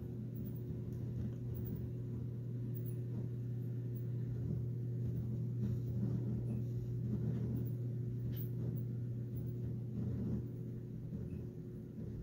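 A steady low hum with a faint higher tone above it, swelling slightly in the middle and easing off again.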